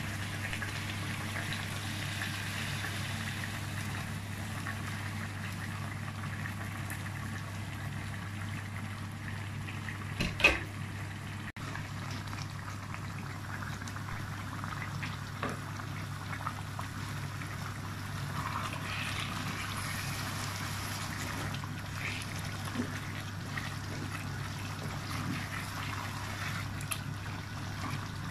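Boiled water poured into a pot of rice and meat, which then bubbles and simmers, over a steady low hum. A single sharp knock comes about ten seconds in.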